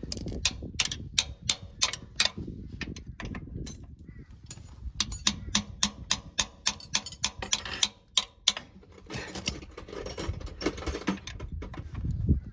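Ratchet spanner with a 15 mm socket clicking in runs of short strokes, a few clicks a second, as it loosens a tractor's sump plug.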